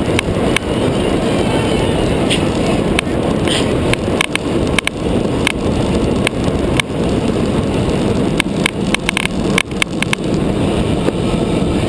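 Wind rushing over the microphone of a camera mounted on a road bike's handlebars while riding at speed, with scattered sharp clicks and knocks from the bike and mount, more of them bunched together near the end.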